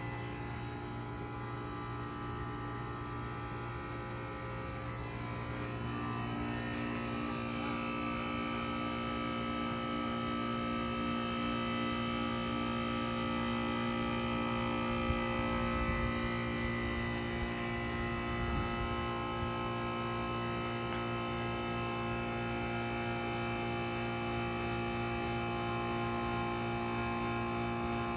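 1995 Bard 3-ton wall-hung heat pump running through a defrost cycle with a steady mechanical hum. About six seconds in, new tones join the hum, one of them pulsing quickly, and the sound gets a little louder.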